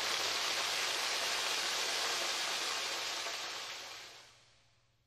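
Waterfall pouring down, a steady rush of falling water that fades away over the last second and a half.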